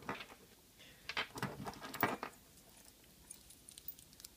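Faint clicks and light scraping of a padlock and small tools being handled while the lock is taken apart, in short clusters about a second and about two seconds in, with a few small ticks near the end.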